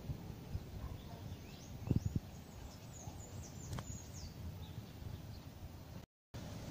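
Gusting wind buffeting the microphone as a low rumble, with a few thumps about two seconds in, while small birds chirp briefly in short high notes in the middle. The sound drops out completely for a moment just after six seconds.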